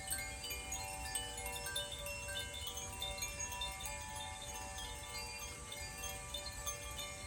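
Hand-played tuned wind chimes ringing, with many notes struck in quick succession that overlap and sustain into a continuous shimmering wash.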